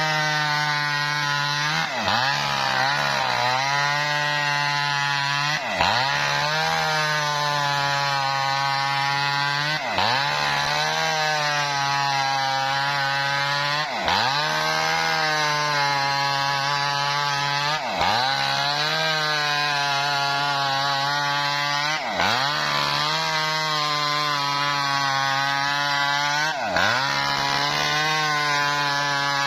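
Small engine-driven wood-cutting machine running under load as it saws lengthwise through a coconut palm trunk. The engine note holds steady but dips sharply and recovers about every four seconds.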